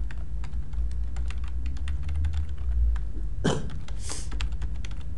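Computer keyboard typing: a run of quick key clicks over a steady low hum. About three and a half seconds in, the keys give way to a short, louder hiss-like rush of noise.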